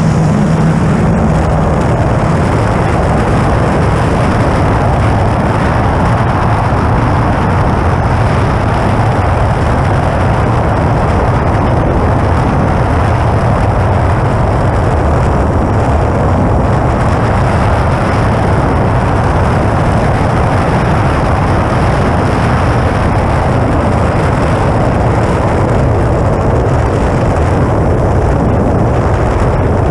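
Steady, loud wind rush on a GoPro mounted on the wingtip of an electric E-flite Air Tractor RC plane under power, with the airflow and propeller noise blended into one even, rumbling hiss.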